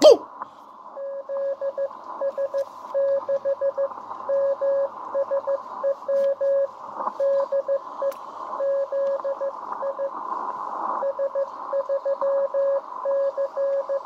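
Morse code coming in on an HF amateur radio transceiver's speaker: a single steady-pitched beep keyed in dots and dashes at an even sending speed over a bed of band hiss. The keying starts about a second in and runs on with short pauses between characters and words.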